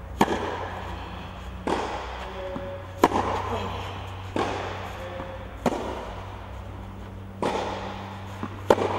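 Tennis balls struck with racket strings during a baseline rally, a sharp pop roughly every second and a half. Louder hits about every two and a half seconds alternate with softer ones, each with a short echo. A steady low hum runs underneath.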